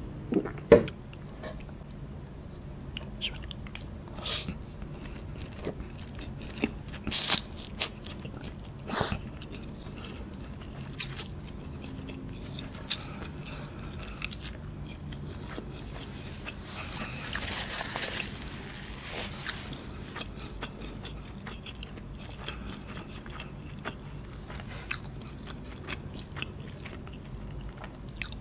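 Close-up eating sounds of noodles eaten by hand: chewing and mouth smacks, with scattered sharp crunches, the loudest in the first half, and a longer noisy stretch a little past the middle.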